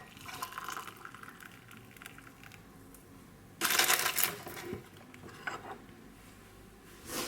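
Handling noises while eating at a table: scattered small clicks and one louder rustling scrape, lasting under a second, about three and a half seconds in.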